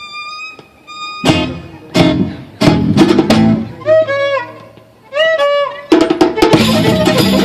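Live gypsy-style band music: a violin plays held notes and slides, with loud accompanying chord strokes from the band, and the full ensemble comes in together about six seconds in.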